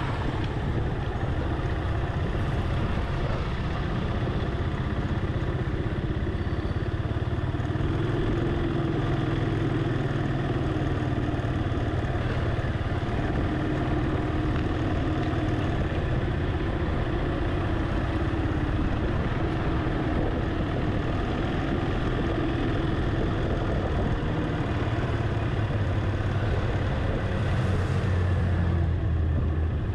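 A vehicle's engine runs at low speed over steady road and traffic rumble, its note drifting up and down with speed. The low rumble grows louder near the end.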